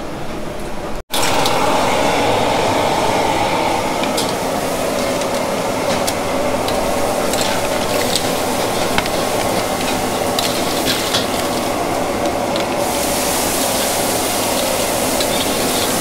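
Food sizzling and frying, with small clinks and scrapes of cooking utensils. It starts abruptly about a second in, and the hiss grows brighter near the end.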